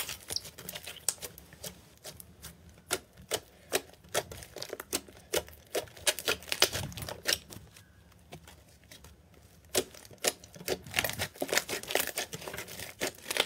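Pink fluffy slime kneaded and pressed by hand, giving off irregular sharp clicks and pops as trapped air is squeezed out. The clicking pauses for about two seconds just before the middle, then comes back in a dense run near the end.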